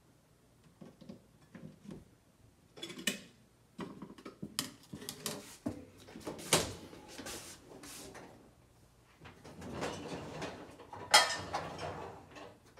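Kitchen handling noises: irregular knocks, clatter and rustling as things are moved about, with one sharp knock near the end the loudest.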